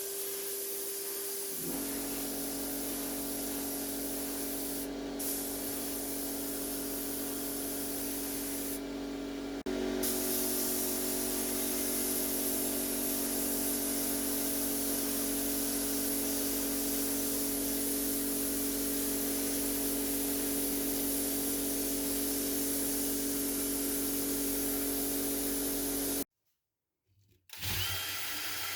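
Handheld electric power tool running at a steady speed, with a motor whine and a hiss on top. Its pitch drops a step about two seconds in, and it cuts out abruptly for about a second near the end.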